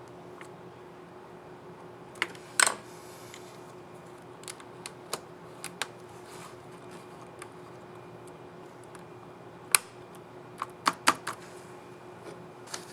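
Sharp plastic clicks from a keycap on an HP 15 laptop keyboard as the key is snapped onto its scissor mechanism and pressed. The clicks are scattered: a loud pair a couple of seconds in, lighter single clicks after that, and a quick run of loud clicks about ten seconds in, over a faint steady hum.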